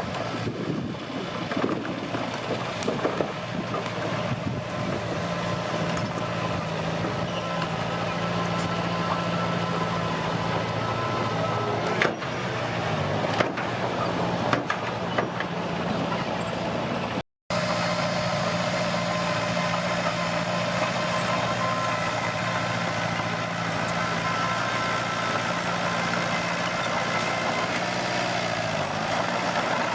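Komatsu D21P bulldozer's diesel engine running steadily, with a few sharp knocks in the middle. The sound cuts out for an instant just past halfway.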